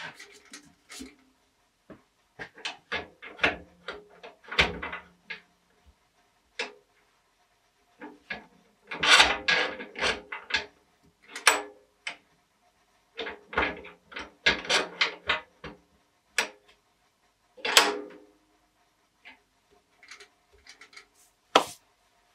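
Irregular knocks, clicks and clunks of wood and metal as a square wooden blank is set between the four-jaw chuck and tailstock of a stopped wood lathe and the metal tool rest is moved into place. The busiest run of clunks comes about nine seconds in.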